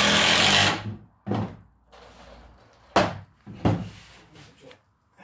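A power drill running, cutting off about a second in, then several sharp knocks.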